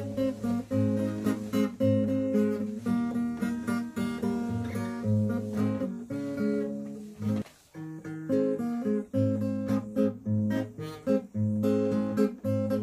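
Acoustic guitar playing chords, strummed and plucked, with a brief pause a little past halfway.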